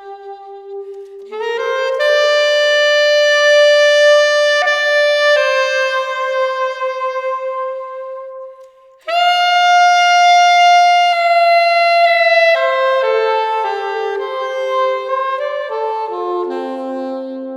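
Solo saxophone improvising inside a theatre freight elevator. It plays long held notes, breaks off briefly a little past halfway, comes back on a loud high held note, then steps down through a falling line of shorter notes to a low held tone near the end.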